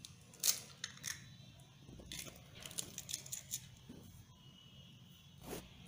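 An egg's shell cracking and crackling as fingers break it open and pull it apart: a sharp crack about half a second in, then a run of small crackles and clicks, and a duller knock near the end.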